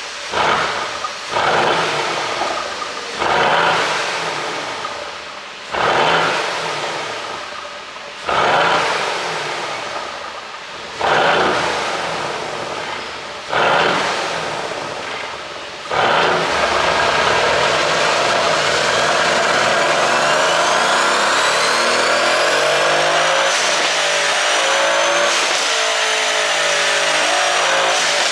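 Mercedes-AMG GLC63 S twin-turbo V8 with a pop-and-crackle exhaust tune, blipped about seven times, roughly every two seconds, each rev falling away. It is then held at a steady high rev whose pitch rises and drops back suddenly twice near the end.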